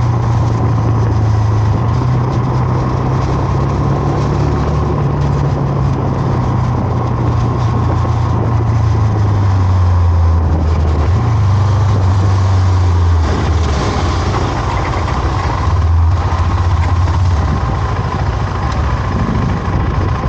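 KTM 390 Adventure's single-cylinder engine running under way with wind and road noise. Its pitch dips around ten seconds in and picks up again about a second later.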